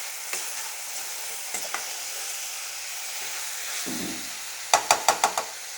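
Chicken frying in oil in a pan with a steady sizzle, with a quick run of about six sharp metal clinks of a utensil against the pan near the end.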